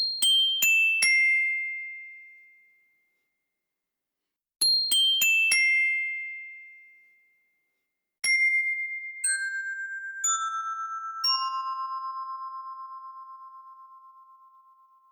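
Glockenspiel playing a four-note descending 'pinpon panpon' announcement chime. It is played quickly twice in a high register, then once more about eight seconds in, slower and lower, with each note left to ring and pulse as it fades.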